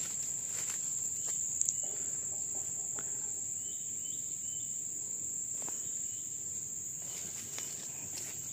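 Insects droning steadily at one high pitch, with a few faint clicks and three short faint chirps a little past halfway.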